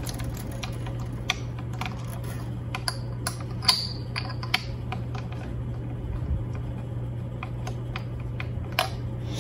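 Scattered light clicks and ticks of fingers working the metal parts of a Floyd Rose locking tremolo bridge while the strings are brought back up to tension, over a steady low hum.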